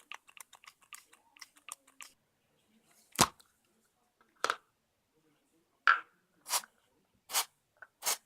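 A quick run of faint, light clicks, then six louder, sharp separate clicks spaced about a second apart, from small hard parts being handled.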